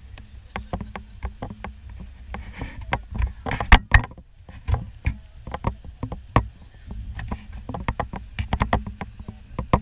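Rattling clicks and knocks of a small open-sided utility vehicle riding over bumpy ground, over a steady low rumble, with the loudest clatter about four seconds in.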